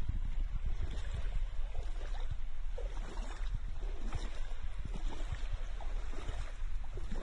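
Wind rumbling on the microphone over shallow water sloshing and lapping close by, with small irregular splashes.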